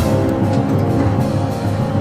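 Background music: sustained chord tones over a pulsing bass.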